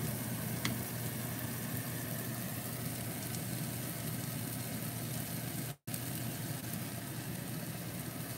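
Frying pan of sautéed tomatoes and egg sizzling gently on low heat, over a steady low hum. The sound drops out for a moment about six seconds in.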